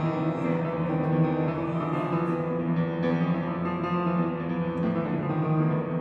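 Instrumental soundtrack music with long held low tones.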